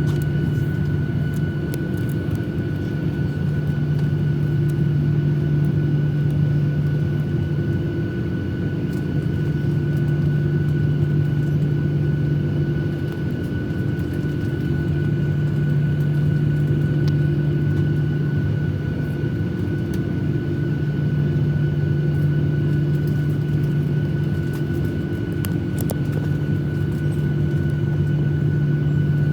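Steady engine hum inside the cabin of a Boeing 737-800 airliner, a constant low drone that swells and eases slightly every few seconds, with a fainter steady whine above it.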